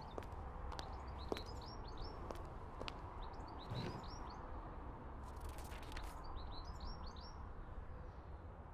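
Small birds chirping in three short bursts of quick, down-curving chirps, over a steady low rumble. A few sharp clicks and a brief hiss come about five and a half seconds in.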